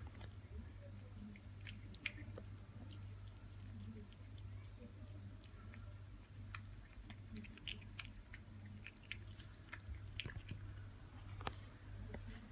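Kitten chewing and biting raw minced meat from a bowl: irregular small wet clicks and smacks. A faint steady low hum runs underneath.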